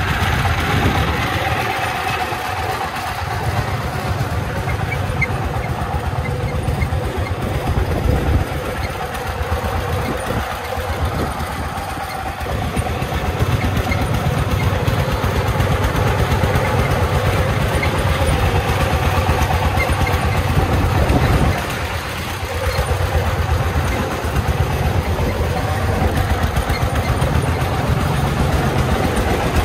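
Công nông three-wheeled farm truck's single-cylinder diesel engine chugging steadily under way, hauling a load of gravel. It dips briefly about three-quarters of the way in.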